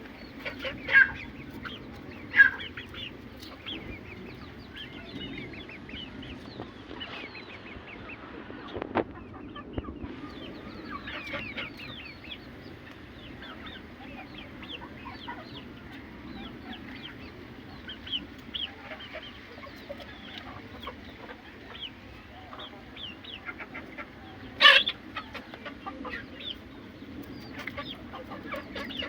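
Aseel chickens clucking and calling, many short calls overlapping throughout, with a few louder, sharper calls about one and two and a half seconds in and again about 25 seconds in.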